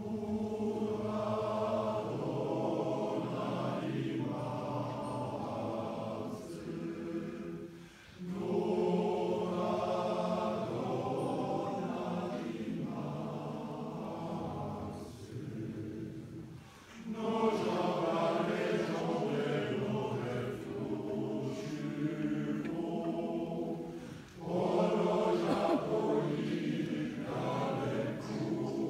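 Mixed choir singing in long phrases under a conductor, with a short break for breath about every eight seconds.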